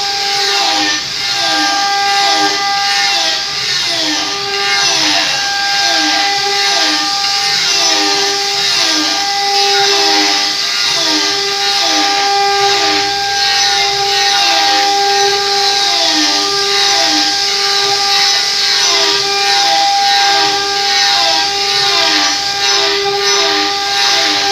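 Large wood lathe running with a steady motor whine while sandpaper is held by hand against the big spinning wooden turning, giving a continuous hiss with a rhythmic swish about twice a second as the piece turns.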